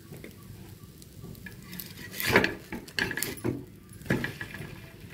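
Metal spatula scraping and knocking on a dosa griddle while a bread omelette is flipped over: quiet at first, then a loud scrape about two seconds in and a few more sharp scrapes after it, over faint sizzling.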